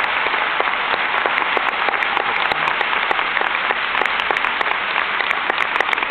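Audience applause in a large hall, many hands clapping, with close, sharp claps from people right beside the microphone.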